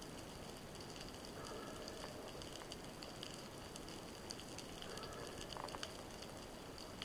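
Underwater ambience: a steady hiss with a constant fine crackle of small clicks, and two faint brief tones about one and a half and five seconds in.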